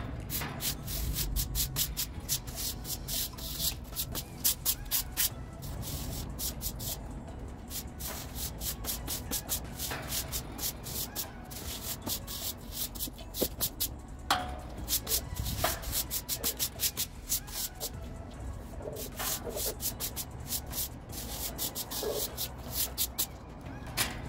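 Stiff push broom scrubbing a wet kennel floor in quick, repeated scraping strokes, with a few short pauses.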